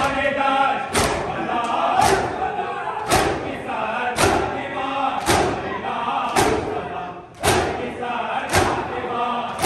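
A crowd of men beating their chests in unison (matam), one loud, hard slap about once a second. Chanting voices carry on between the strikes.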